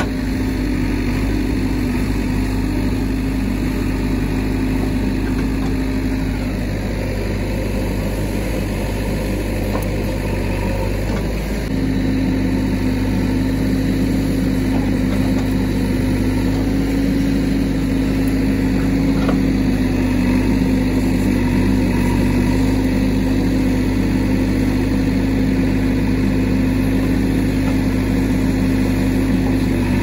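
JCB 3DX backhoe loader's diesel engine running steadily while the backhoe arm digs and dumps soil. Partway through, its drone steadies at a higher, louder note and holds there.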